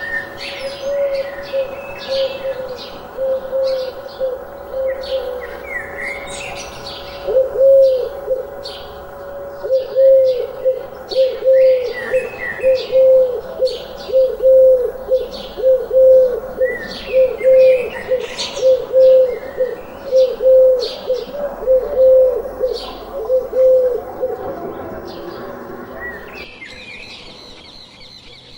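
Small birds chirping throughout while a pigeon coos, a long run of low, evenly repeated coos through the middle; the sound cuts off suddenly near the end, leaving fainter chirping.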